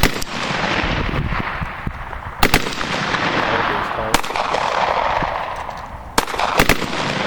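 Rifle shots fired in a string, a sharp crack every two seconds or so with a few coming closer together near the end. Each crack trails off in a long rolling echo.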